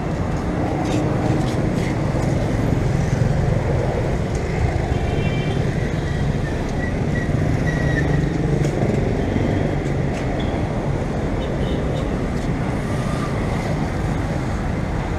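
Street traffic: cars and motorcycles passing close by, a steady rumble of engines and tyres.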